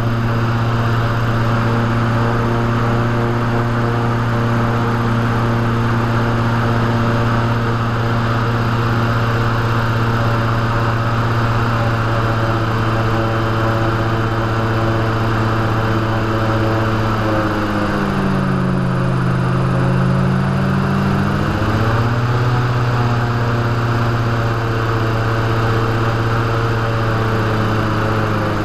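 Airboat engine and propeller running at a steady drone while under way across the marsh. Roughly two-thirds of the way through, the pitch drops as the engine is throttled back, then climbs again a few seconds later.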